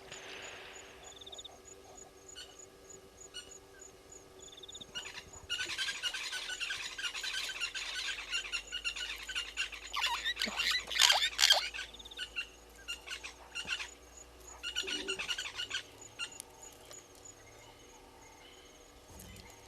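Wild birds calling in a busy, chattering burst that grows loudest a little past the middle, then breaks into shorter bursts. Faint high pips repeat steadily a few times a second behind them.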